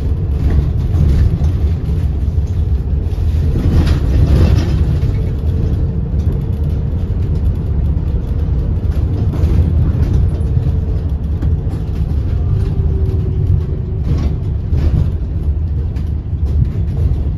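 Steady low rumble of a moving road vehicle heard from on board, with a faint steady hum over it. Brief clattering rises about four seconds in and again a few seconds before the end.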